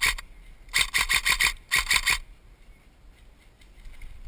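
Electric airsoft rifle, a BOLT B4A1 with its BRSS recoil system, firing three short bursts of rapid shots at about seven a second within the first two seconds or so. Each shot is a sharp mechanical clack.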